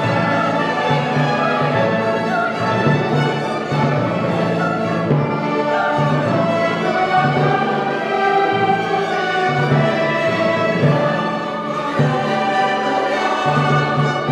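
Choir and orchestra performing classical sacred music, with held chords over a repeated low bass note.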